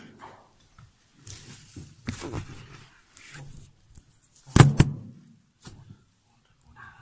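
Scattered knocks and rustles, with a loud double thump about four and a half seconds in.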